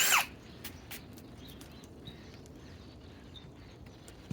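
Brief burst of a cordless Ryobi hammer drill driving a 1 3/8-inch spade bit on speed 2. The motor's pitch rises and then drops, and it stops about a quarter second in: on this setting it cannot bore the hole. After that there are only a few faint clicks.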